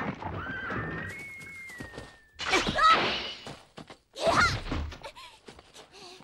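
A horse whinnies, then its rider is thrown and hits the grass with a heavy thud and a cry. This is animated-film sound effects, with a thin high held tone before them.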